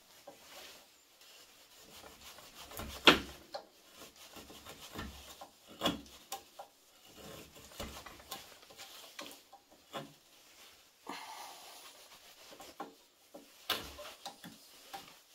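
Swiss Army knife's main blade cutting and shaving a piece of wood: irregular scraping strokes with a few sharp clicks, the loudest about three seconds in.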